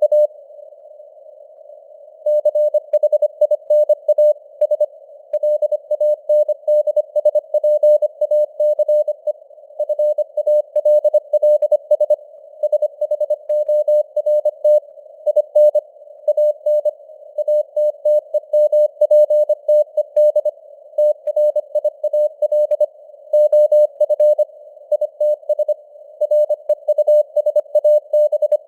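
Morse code (CW) at 25 words per minute: a single mid-pitched tone keyed on and off in dots and dashes over a narrow band of simulated radio hiss. There is a pause of about two seconds near the start.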